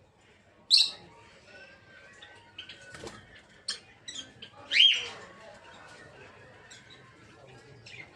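Peach-faced lovebirds chirping: scattered short high-pitched chirps, with two loud sharp calls about a second in and near five seconds in.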